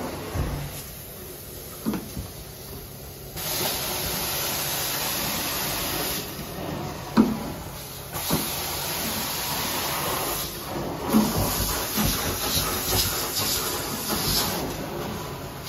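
Carpet-cleaning extraction wand working wet carpet in strokes: a steady hiss of suction and spray that starts a few seconds in, stops briefly twice and comes back, with a few short knocks along the way.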